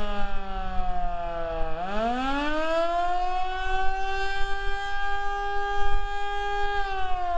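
Federal Signal Model 2 electromechanical outdoor warning siren sounding the attack signal: its tone falls to a low, winds back up about two seconds in, holds a steady high pitch for several seconds, then starts falling again near the end. Wind rumbles on the microphone underneath.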